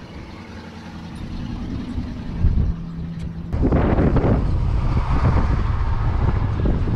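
Low engine-like rumble mixed with wind noise on the microphone, jumping louder and rougher about three and a half seconds in.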